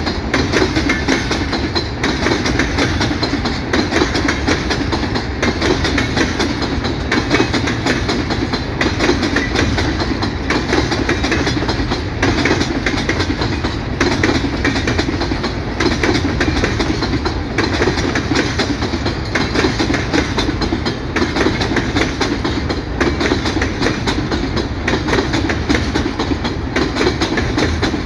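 Empty freight hopper wagons rolling past, a steady rumble and rattle with the clack of wheels over rail joints every second or two.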